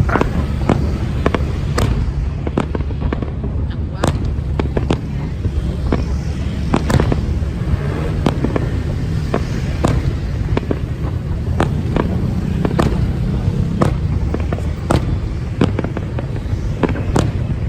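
Aerial fireworks bursting in a continuous display: a steady stream of sharp bangs, one or two a second, over a deep rumble.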